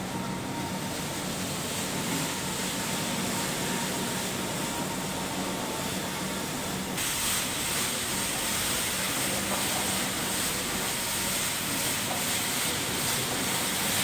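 Forklift driving with a front-mounted hydraulic rotary sweeper brush turning against a concrete floor: a steady machine hum under the hiss of the bristles sweeping. About halfway through, the hiss suddenly becomes brighter.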